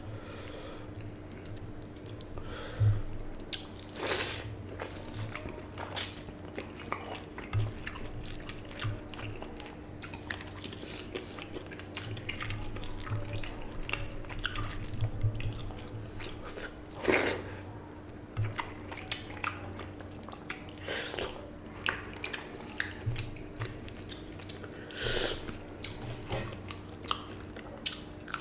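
Fingers mashing and mixing water-soaked rice (panta bhat) with fried hilsa in a plate, close to the microphone: irregular wet squelches, smacks and clicks, with a few louder ones, over a steady low hum.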